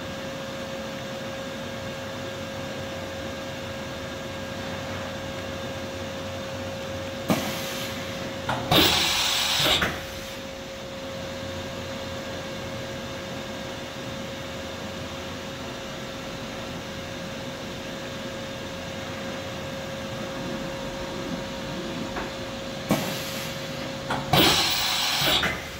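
Doosan DNM400 vertical machining center running tool changes on its 30-position automatic tool changer. Each change is a knock followed about a second later by about a second of loud hiss; there are two, about fifteen seconds apart, over the machine's steady hum with a constant tone.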